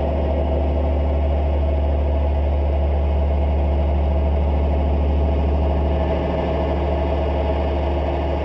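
Noise music performance: a loud, steady low drone with a dense, rapidly pulsing rumble layered over it.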